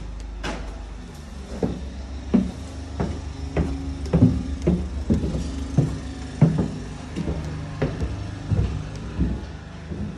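Footsteps going down a staircase and onto a bare floor, about one step every 0.6 seconds, over a low steady hum.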